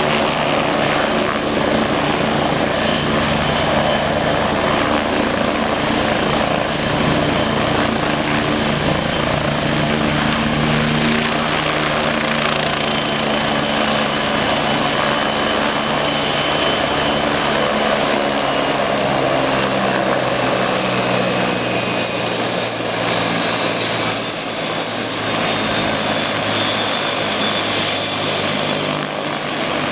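MBB Bo 105 helicopter running on its skids just after touchdown, with its rotors turning and its twin Allison 250 turboshaft engines running steadily. A high turbine whine drops slightly in pitch about halfway through and then holds level as the engines wind back.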